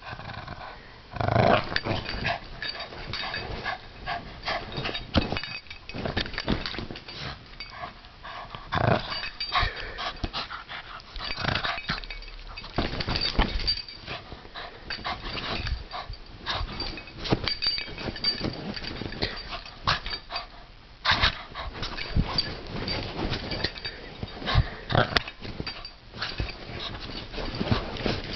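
A small Bugg (Boston terrier–pug cross) dog growling in play while tugging on a rope toy, in irregular bouts, mixed with rustling and bumping from the rope and handling close to the microphone.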